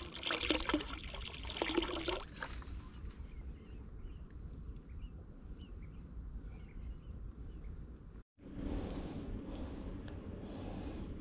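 Water pouring from a plastic bottle into the river, a splashing, gurgling trickle for the first two seconds or so. After a cut near the end, a steady high insect trill.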